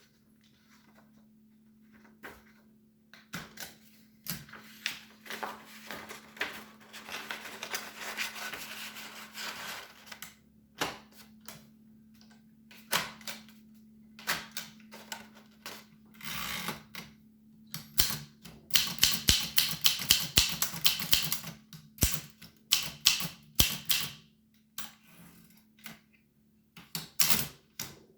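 Keys being typed on an 1895 Williams No. 1 typewriter, as irregular sharp clacks of keys and typebars striking. Bursts come in uneven runs, with a fast dense flurry about two-thirds of the way in.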